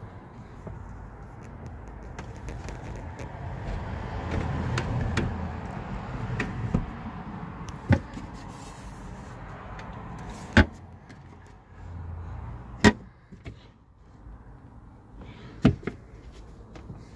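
Handling noise inside a camper van: rustling and a low rumble, then four sharp knocks spaced a couple of seconds apart through the second half.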